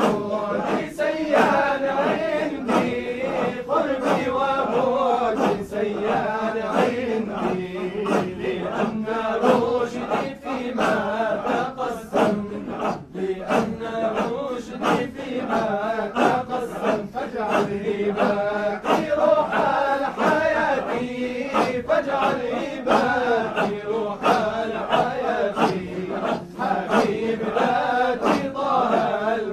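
Men chanting dhikr together in a Sufi hadra: a continuous, rhythmic group chant with a melodic male voice singing over it.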